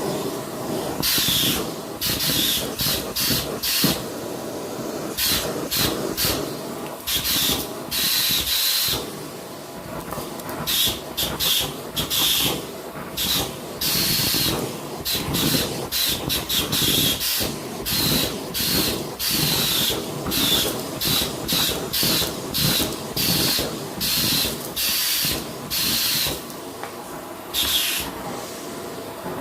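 Vacuum cleaner running with a steady motor hum. Its suction hiss swells and drops back in short, irregular bursts about once a second as the nozzle is pushed and pulled over the surface.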